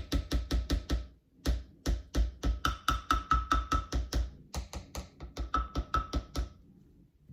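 Background music with a fast, steady beat and deep bass, which drops out briefly about a second in and stops near the end.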